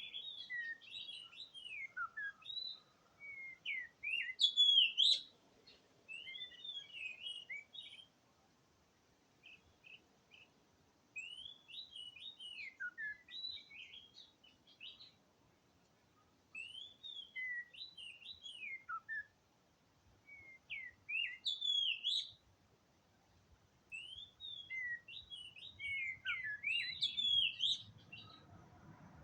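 Oriental magpie-robin singing: bouts of quick, varied whistled phrases a few seconds long, broken by short pauses.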